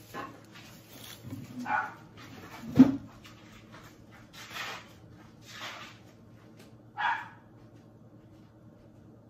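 A dog barking: about six separate barks, roughly a second or so apart, the sharpest and loudest about three seconds in. The barking stops about seven seconds in.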